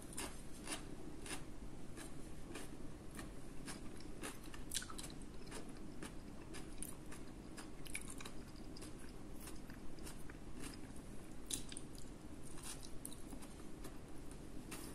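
A person chewing pasta and meatball with the mouth close to the microphone, making many small irregular mouth clicks.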